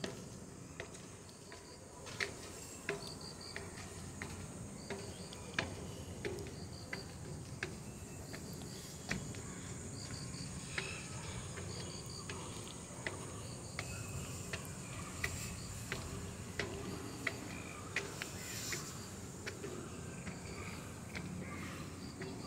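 Footsteps on the steel chequer-plate treads of an outdoor staircase, a sharp clank roughly every 0.7 s as someone climbs. Behind them, insects keep up short repeated chirps and a steady high drone.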